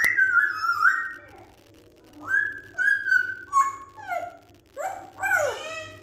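African grey parrot whistling and calling: a rising whistle into held whistled notes, a pause, more held notes, then several quicker rising and falling calls near the end.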